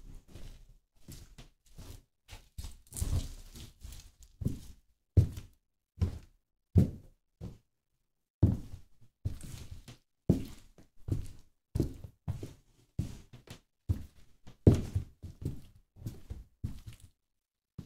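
High-heeled shoes stepping on and crushing hamburgers and fries on a steel diamond-plate floor: a run of irregular thuds and heel knocks, with a short silent pause about seven and a half seconds in.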